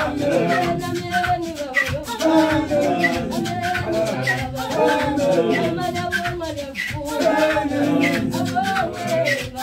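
A group of men singing together, with a fast, steady beat of sharp percussion under the voices.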